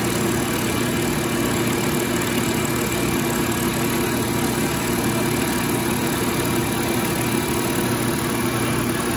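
Milling machine running with its end mill cutting cast iron held in the vise: a steady machining drone that stops suddenly near the end.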